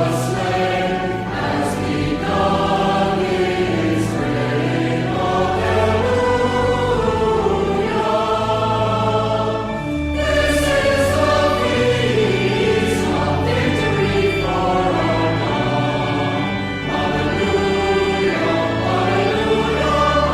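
A choir singing in long held chords over a steady low accompaniment, with short breaks between phrases.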